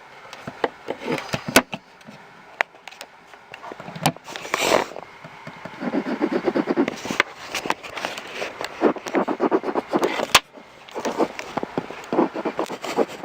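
Jumper handheld fetal Doppler's speaker: crackling and scraping as the probe is moved, then from about six seconds in a fast, rhythmic whooshing pulse, the heartbeat the probe has picked up.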